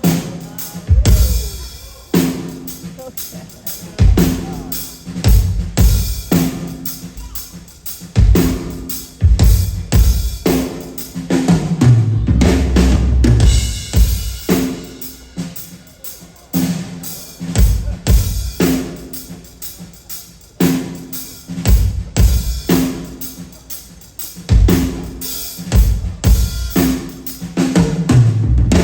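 Live stage percussion: heavy drum hits with a deep bass-drum low end land about every two seconds, with lighter snare-like and rim strokes between them over a few sustained low notes.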